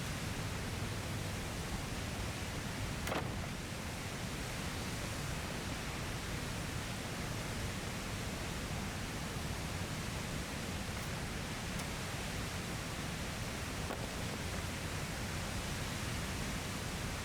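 Steady rushing of a waterfall, an even wash of water noise with no breaks. A single short click about three seconds in.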